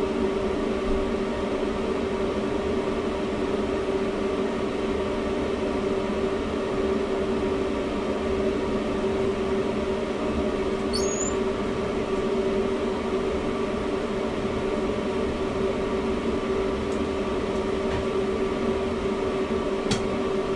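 Blower of a home-built extra-oral HEPA filtration unit running steadily, drawing air in through its hood and flexible hose: a constant rush of air with a steady hum.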